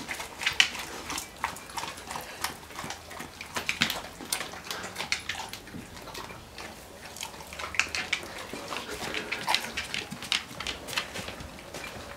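A Golden Retriever and a German Shepherd eating spaghetti: chewing and mouth smacking in many short, irregular clicks.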